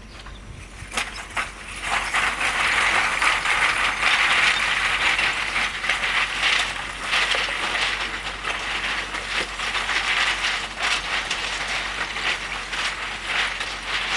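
Loose broken rock clattering and crunching under the tyres of a Land Rover Discovery II as it climbs a rock-strewn trail: a dense, continuous run of clicks and knocks that grows louder about two seconds in.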